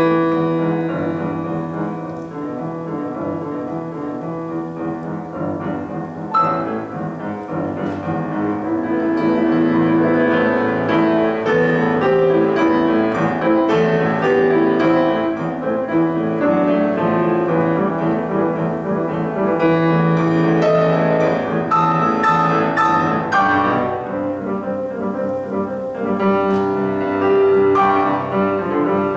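Solo grand piano playing a Zuni dance melody harmonized in Romantic style: a held low bass under shifting chords, with a sharply struck chord about six seconds in, louder playing from about nine seconds on, and another accent near the end.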